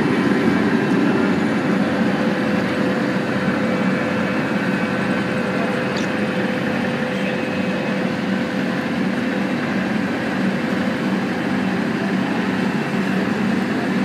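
Vögele asphalt paver's diesel engine running steadily at close range: a constant drone with a steady hum.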